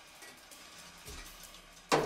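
Sparse free-improvised acoustic drum kit playing: faint light taps, a soft low drum thump about halfway, and one loud drum hit near the end that rings on.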